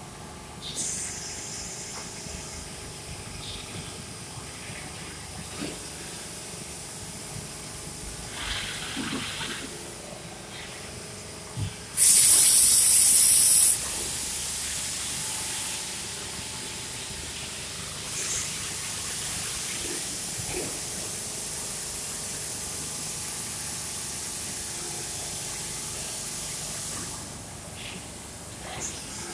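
Air hissing from a vacuum forming machine, with a loud blast of air lasting about two seconds midway, followed by a steadier hiss that cuts off near the end.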